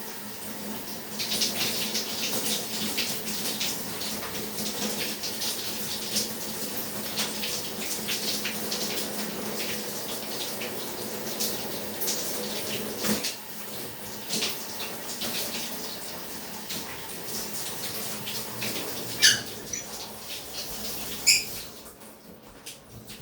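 Shower water running and spattering unevenly, with a faint steady hum underneath. Two sharp, short sounds come near the end, and the water dies down just before the end.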